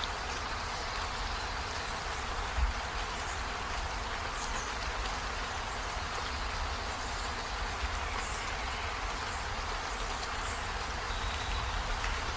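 Steady rain, an even hiss, over a constant low rumble, with one dull thump about two and a half seconds in.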